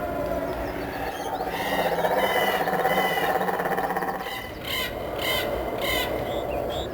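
Birds calling, crow-like caws, with three short calls about half a second apart near the end.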